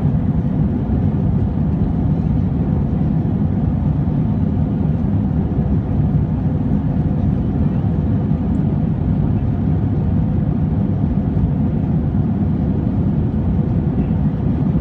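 Steady engine and airflow noise inside an Airbus A320's cabin during the climb after takeoff: an even low rush with a faint steady hum.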